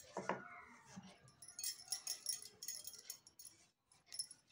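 Bangles on the wrists clinking and jingling faintly in short clusters as the hands roll mawa dough into balls. A brief pitched sound that falls in pitch comes just after the start.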